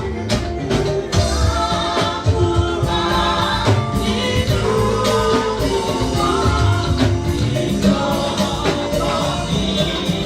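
A gospel hymn sung by a group of voices in chorus, backed by drums and percussion keeping a steady beat.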